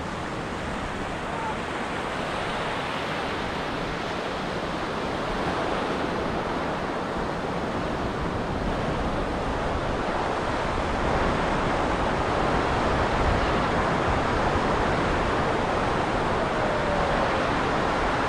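Ocean surf washing onto a beach: a steady rush of breaking waves that swells gradually louder, rising a step about two-thirds of the way through.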